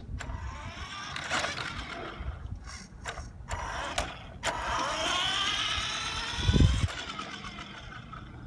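Electric motor and gears of a radio-controlled truck whining, the pitch rising and falling as it speeds up and slows down, with a few sharp clicks and one heavy thump late on.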